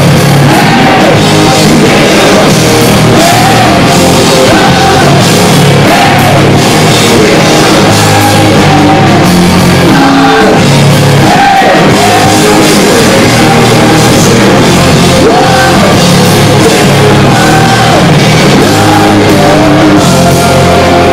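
Live rock band at full volume: heavy electric guitar and drums with a male lead singer, sung phrases rising and falling over a dense, unbroken wall of sound.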